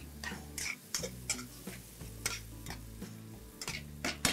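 Spatula stirring and scraping a thick tomato, onion and garlic masala in a kadai, in about ten irregular strokes, roughly two a second, with the masala sizzling softly as it cooks down.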